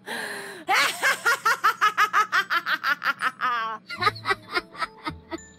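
A woman's hearty, rapid cackling laughter, opening on a breathy shriek and breaking into a squealing wheeze about three seconds in; a second woman's laughter takes over about four seconds in.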